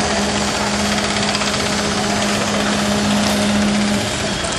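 Construction machinery running on a building site: a steady hum over a rough, continuous mechanical noise, the hum dropping out about four seconds in.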